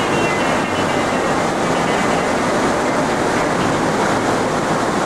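Fast mountain river rushing in a steady, even roar of whitewater.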